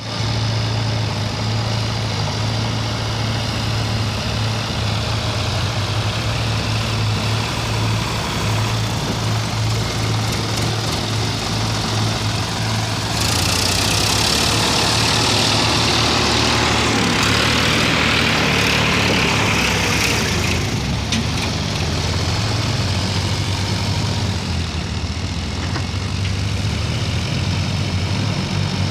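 JCB backhoe loader's diesel engine running steadily, with a louder rushing noise for about eight seconds in the middle.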